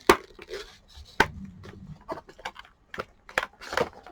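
Irregular sharp clicks, snaps and knocks of the rigid plastic housing and parts of an old rice cooker being worked loose and pulled apart by hand, the loudest snap just after the start and another about a second in.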